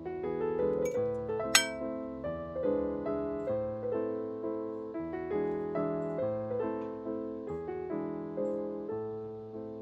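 Solo piano background music, notes struck and left to die away one after another. A single sharp clink cuts through it about one and a half seconds in.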